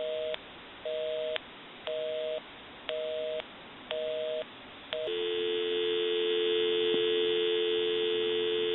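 Telephone-line busy signal: a two-tone beep repeating about once a second, half a second on and half off, because the line being called is engaged. About five seconds in it gives way to a steady, continuous dial tone.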